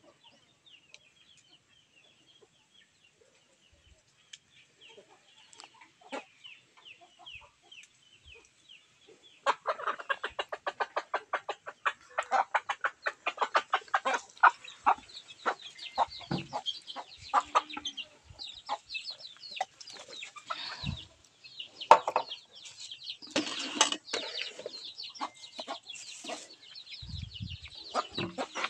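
Chickens clucking: faint high chirping at first, then from about a third of the way in a loud, fast run of clucks at about seven or eight a second, followed by irregular clucks and calls.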